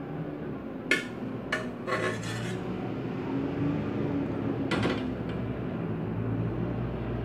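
Metal ladle clinking and scraping against an aluminium pressure cooker and a glass serving bowl as stew is ladled out, a few sharp knocks in the first two and a half seconds. Just under five seconds in, the metal pot knocks once as it is set down on the gas stove's grate.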